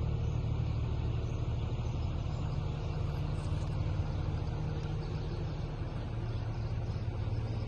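A motor vehicle engine running steadily nearby: an even, low rumble that neither rises nor falls.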